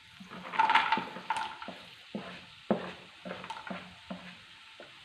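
Spatula stirring tomatoes, onions and cashew nuts sautéing in butter in a pan, with a light sizzle. A louder clatter of stirring comes about a second in, then separate spatula strokes against the pan roughly twice a second.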